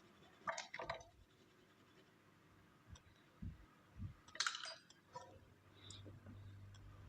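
Scattered light clicks and scrapes of small parts being handled, with a faint low steady hum coming in near the end.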